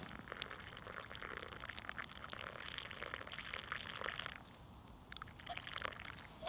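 Coffee poured from a black pot into a wooden kuksa cup, splashing steadily. The pour stops about four seconds in, and a few last drips follow.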